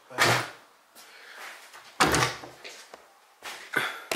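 An interior wooden door being handled and opened: three short bumps and scrapes with a few sharp clicks.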